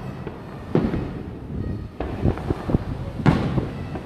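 Aerial fireworks shells bursting: three booms about a second and a quarter apart, each trailing off in a low rolling echo, with a few smaller cracks after the second.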